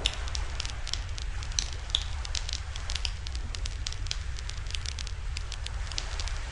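Wood fire crackling with a steady run of small pops and a couple of sharper snaps, one right at the start and one about two seconds in, over a steady low rumble.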